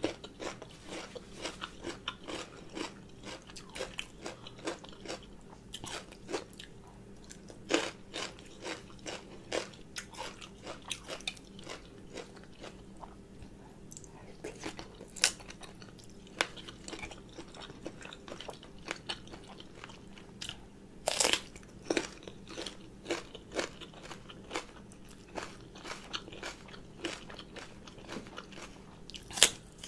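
Close-miked eating sounds: irregular crunching bites and wet chewing of papaya salad with raw shrimp and raw round Thai eggplant, with a few louder crunches.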